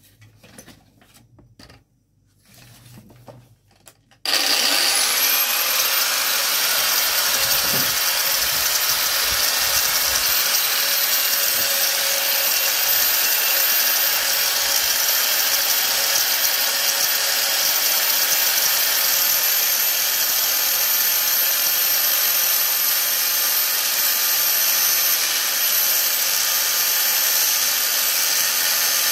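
A few faint handling clicks, then an angle grinder switched on about four seconds in, its whine rising quickly to full speed and then running steadily as its disc grinds a groove into a wooden hiking stick's grip.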